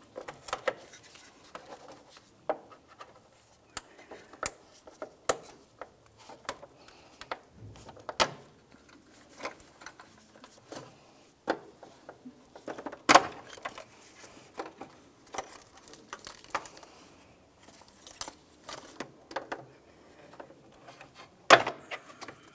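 Scattered clicks, light rattles and plastic snaps as a trim tool pries wiring-harness retainers off a car's radiator cooling-fan shroud. Two sharper snaps stand out, one about halfway through and one near the end.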